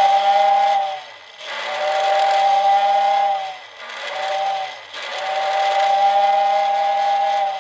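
Bachmann steam whistle in freight station accessory sounding a steam locomotive whistle: a two-note chord with a hiss, sliding up in pitch as each blast starts and down as it ends. It gives four blasts in a long, long, short, long pattern, the grade-crossing signal, with the first already sounding and ending about a second in.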